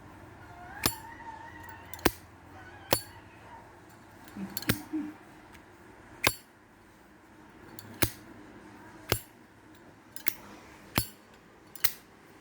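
Zippo lighter being flicked over and over: about ten sharp metallic clicks, roughly a second apart.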